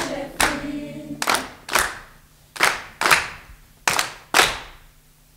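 A young women's choir's last sung chord fades out in the first second. Then come sharp single hand claps in a rhythm of pairs, three pairs in all, each ringing on in the hall's echo.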